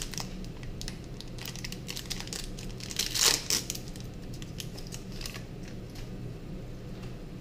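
Foil booster-pack wrapper crinkling as it is handled and torn open, with a louder rip about three seconds in and scattered small crackles around it.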